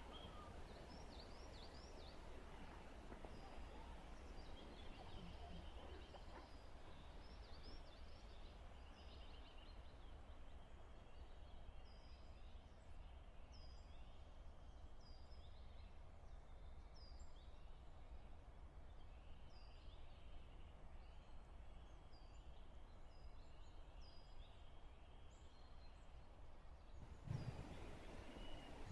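Faint outdoor ambience with small birds singing in the distance: short high chirps, repeating about once a second through the middle, over a low steady rumble. The ambience grows louder near the end.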